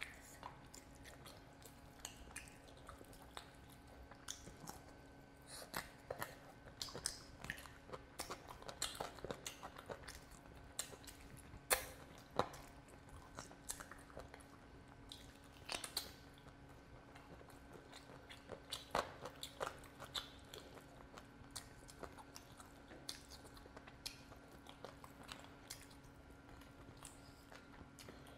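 A person eating chicken curry and rice by hand: chewing and mouth smacks with many irregular sharp clicks and crunches, a few louder ones around the middle, over a faint steady hum.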